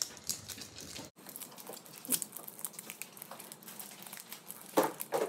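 Pokémon card booster pack's foil wrapper crinkling and tearing as it is ripped open by hand, in irregular crackles, with a louder rip near the end.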